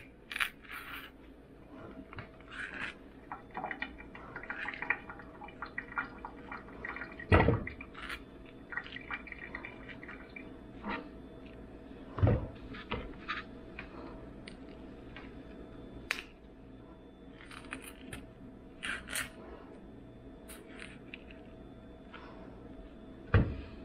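Household handling sounds: scattered light clicks and taps, with three heavier thumps (about 7 s in, about 12 s in and near the end) and some dripping or pouring liquid, over a faint steady hum.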